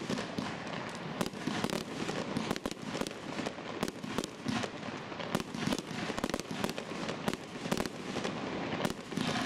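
Fireworks display: a rapid, irregular string of bangs from aerial bursts, several a second, over continuous crackling.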